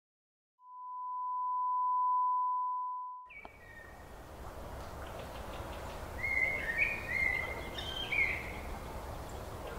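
A steady pure test-card beep that cuts off suddenly about three seconds in. Then outdoor background noise with a low rumble, and birds chirping several times near the end.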